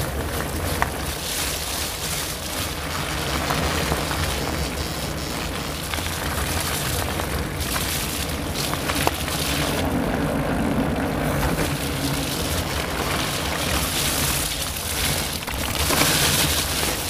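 Wind buffeting the microphone and tyres rolling over a wet forest trail while riding at speed: a steady rushing rumble, with a few light knocks from the ride.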